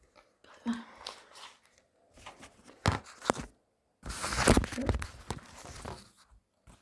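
Gift packaging rustled and torn open by hand, in irregular crinkling and ripping bursts, the loudest stretch about four to five seconds in.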